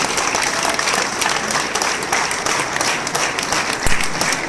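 Audience applauding, a dense patter of many hands clapping, with a brief low thump near the end.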